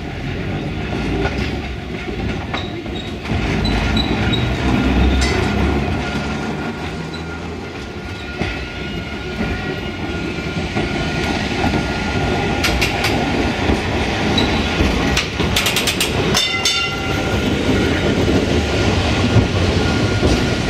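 Vintage electric tramcars running on street track: a steady rumble of steel wheels on the rails, with a thin steady whine in the second half and a cluster of sharp clicks about two-thirds of the way through.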